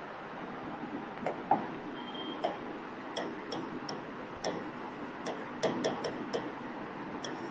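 Stylus tapping and clicking against the glass screen of an interactive smart board while writing: about a dozen sharp, irregular clicks, starting about a second in, over a steady hiss.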